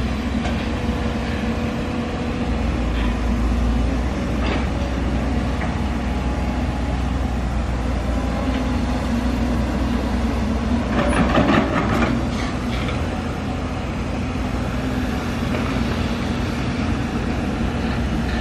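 Hyundai 220-class hydraulic excavator's diesel engine running steadily with a low hum. About eleven seconds in comes a short burst of metallic clanking, the loudest sound here.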